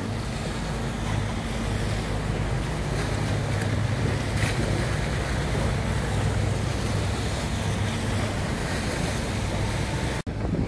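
Water bus engine droning steadily under the rush of water and wind on the microphone. The sound cuts out for an instant near the end.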